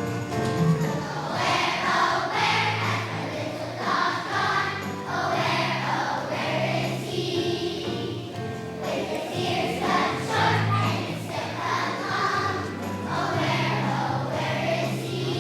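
Young children's choir singing a song in unison over instrumental accompaniment.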